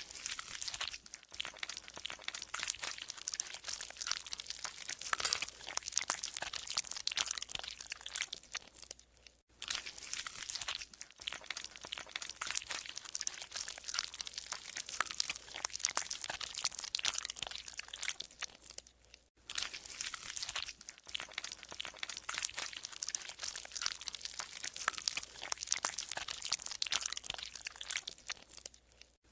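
Golden slime being squeezed and worked by hand, squelching and creaking with dense irregular crackles and pops. It stops briefly a few times before going on.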